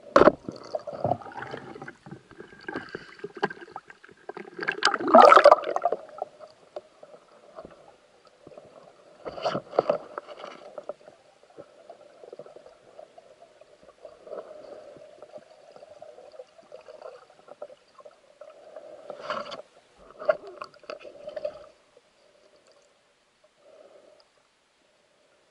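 Muffled underwater noise heard through a camera housing: a sharp click at the start, then irregular bursts of bubbling and rustling as a spearfishing diver moves through the water.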